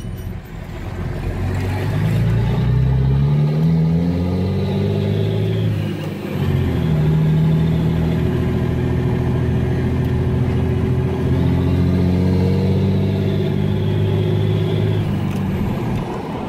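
Dodge Ram 2500's Cummins turbo-diesel engine pulling the truck through the gears, heard from inside the cab. Its pitch climbs, drops at a shift about six seconds in, climbs again and then holds steady at cruise, with a faint high whine rising and falling above it.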